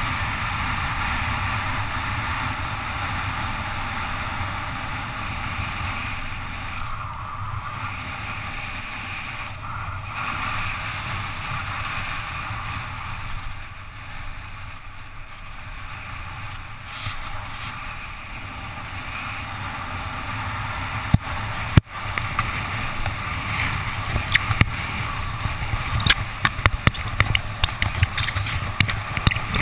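Steady rush of wind over a helmet-mounted camera, with tyre noise on wet asphalt, as a bicycle coasts downhill at speed. Past the two-thirds mark, a run of sharp clicks and knocks joins in.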